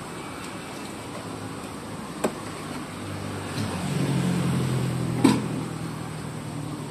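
Two sharp cleaver chops into a chicken on a wooden chopping block, about three seconds apart, the second one louder. A low engine hum swells in the middle and then fades.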